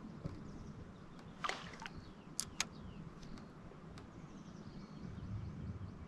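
A few sharp clicks and knocks, about one and a half and two and a half seconds in, over a low steady rumble: small handling noises on a fishing boat.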